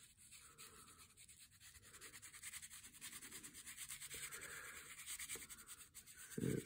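Red colored pencil shading back and forth on brown kraft paper: a faint, quick scratching of short rubbing strokes, with one low thump near the end.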